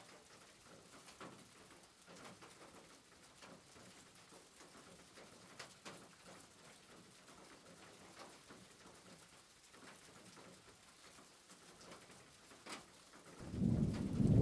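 Wooden spoon stirring chicken pieces in a pot, faint scraping with a few small clicks against the pot. About a second before the end a much louder low rumbling noise sets in.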